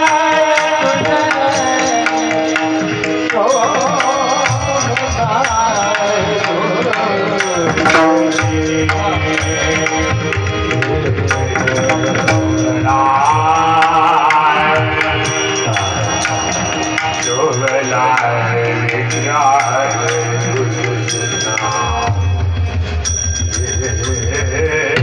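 Marathi kirtan: devotional singing over percussion accompaniment, with a steady held tone underneath the voices.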